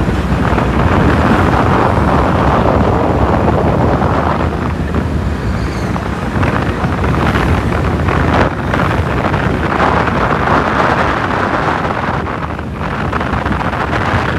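Wind rushing over and buffeting a phone's microphone held out of a moving car's window, over steady road and traffic noise.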